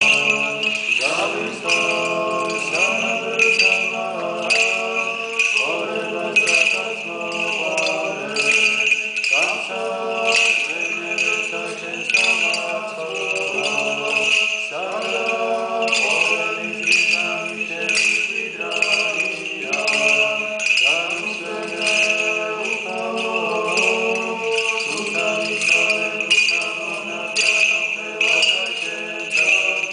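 Georgian Orthodox liturgical chant sung by men's voices, holding long notes and moving between them, with small bells jingling in a steady rhythm throughout.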